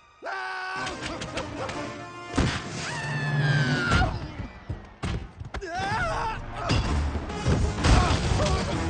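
Animated-film fight soundtrack: orchestral score cutting in abruptly just after the start, with heavy thuds, whacks and crashing impacts over it, and a long falling tone near the middle.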